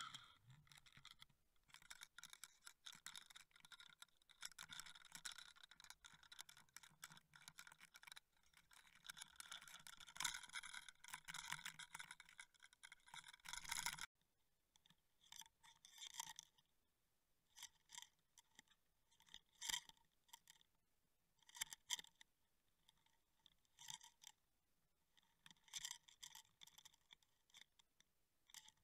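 Faint crackling and scratching, as picked up underwater by a Waterwolf underwater fishing camera in its housing. It is dense for about the first 14 seconds, then thins to scattered clicks and short scrapes.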